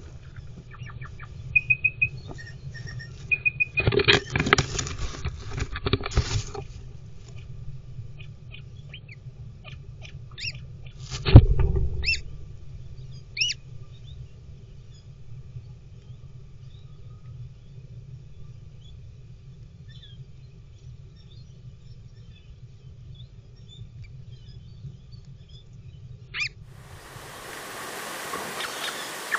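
Adelaide rosella hen scuffling and scratching on the wood-shavings floor of her nest box: a burst of rustling about four seconds in, then a loud thump about eleven seconds in as she leaves, over a steady low hum. Near the end the sound changes to an outdoor hiss with birds chirping.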